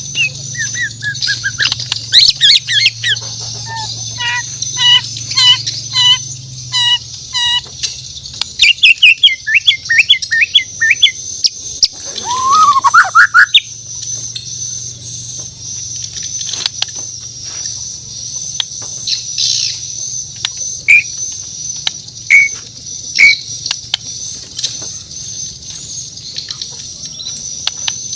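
Murai batu Borneo (shama) singing: varied clear whistled phrases, an evenly repeated note about three times a second, a quick trill and a rising swooping whistle, then only scattered short calls and sharp clicks in the second half. A steady high hiss and a low hum run underneath.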